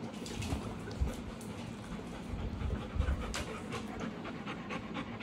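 Dog panting steadily, with a few light clicks and soft knocks.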